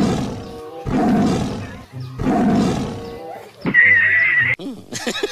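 Three loud animal calls, each just under a second long, followed by a wavering high-pitched whistle-like tone lasting about a second.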